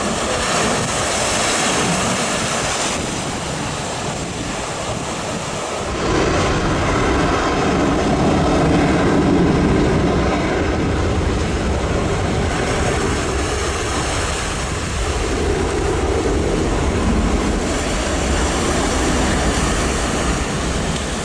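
Jet airliner's engines running at high thrust for takeoff, with jet blast sweeping the beach. About six seconds in, a heavy low rumble of blast wind buffeting the microphone comes in and stays.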